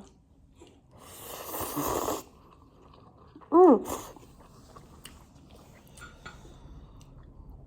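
Ramen noodles slurped up in one rising pull of about a second, then a short, loud vocal 'mm' falling in pitch, then faint chewing.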